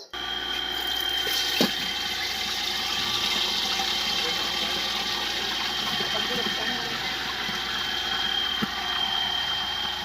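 Pork leg (crispy pata) deep-frying in hot oil: a steady loud sizzle that starts abruptly, with a few sharp pops.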